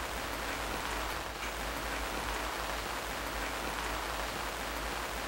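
A steady, even hiss with a low hum beneath it.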